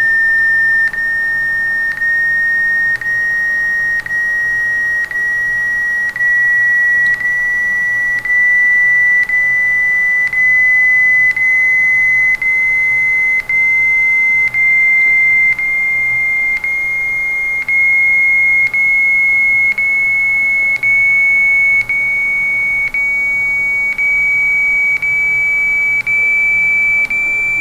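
Computer-generated intrusion-alert tone, sounding as a chain of one-second beeps with a click at each join, each a little higher than the last, so the pitch climbs slowly. The rising pitch signals that the measured intrusion is growing.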